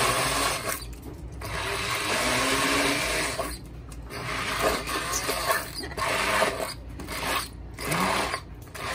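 Electric immersion blender running in short pulses, its blade chopping and pureeing boiled tomatoes in a stainless steel bowl. The motor stops and restarts several times.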